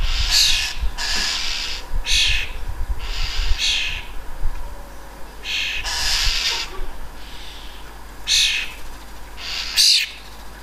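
Starlings giving harsh, rasping protest calls, repeated every second or so, with a short pause near the end. They are calls of protest at a magpie patrolling the bird feeder.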